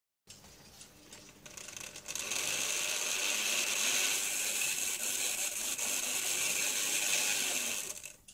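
Model locomotive's small electric motor and gear train running under load while the engine pulls against a force gauge. The sound builds over the first two seconds as power comes up, holds steady and loud, then drops away just before the end.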